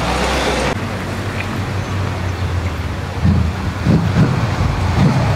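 Mercedes-AMG E63 S twin-turbo V8 running through a catless SuperSprint exhaust: a steady low rumble, then from about halfway a run of uneven, louder low pulses as the engine is worked.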